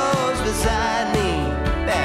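Background song: a voice singing over guitar-band accompaniment with a steady beat.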